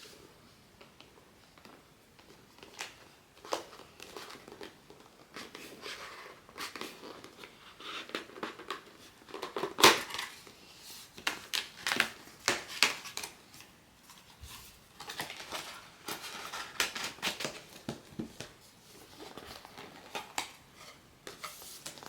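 Blind-box packaging being opened by hand: plastic wrap and foil crinkling and tearing, with irregular sharp clicks and taps of cardboard and plastic. The loudest click comes about ten seconds in.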